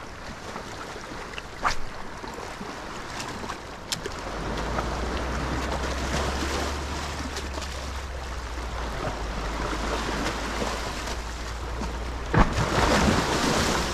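Wash of waves along the shore with wind rumbling on the microphone, broken by a few sharp clicks and a louder rustling burst near the end.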